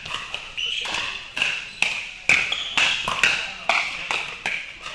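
Pickleball paddles striking plastic balls: about a dozen sharp, irregular pops from several courts, each one echoing in the indoor hall.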